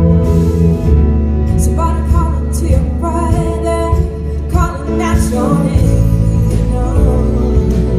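Song with a woman singing over a band: a heavy bass line and drums, the voice coming in about two seconds in.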